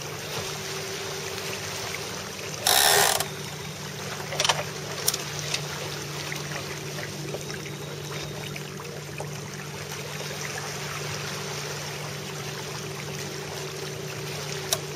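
Steady rush of water and wind past a Melges 24 sailboat under way, with a short loud rasp about three seconds in and a few sharp clicks soon after.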